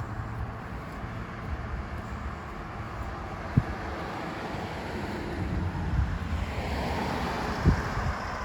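Outdoor traffic ambience with wind rumbling on the microphone, and a vehicle passing that grows louder toward the end. Two brief low thumps, one near the middle and one near the end.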